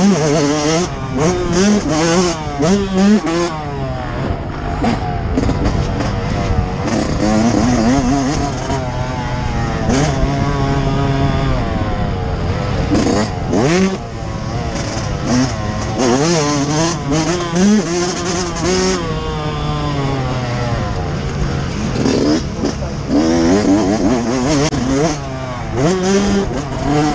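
Yamaha YZ125's single-cylinder two-stroke engine revving hard and dropping off again and again through a motocross lap, the pitch climbing with each burst of throttle and falling on the shifts and braking. Bursts of wind noise on the helmet-mounted microphone run through it.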